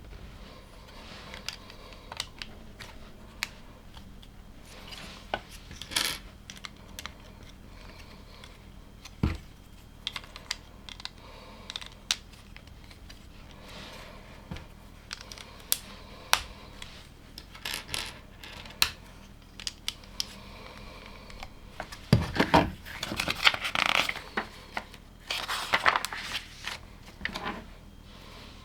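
Plastic LEGO pieces being handled and snapped together: scattered sharp clicks, with a denser run of louder clattering near the end.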